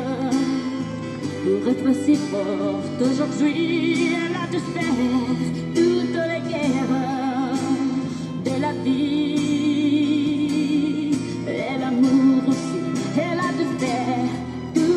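A slow song playing, with a voice singing long, wavering notes over sustained chords.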